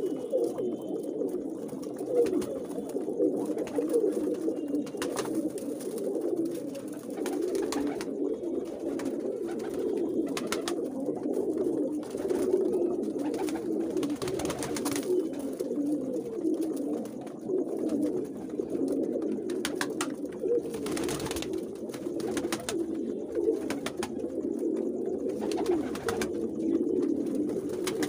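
A loft full of domestic pigeons cooing, a continuous overlapping low warbling chorus that never lets up.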